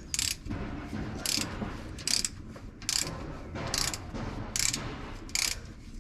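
Ratchet wrench clicking in seven short runs, about one every 0.8 seconds, as it turns an axle oil plug.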